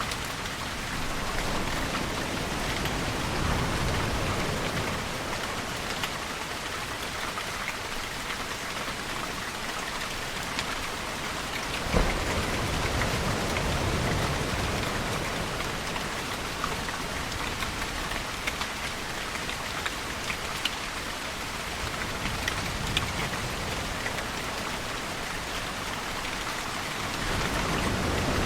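Steady rain falling, with many small drops ticking on nearby surfaces and one sharper drip about twelve seconds in. A low wash swells and fades a few times underneath.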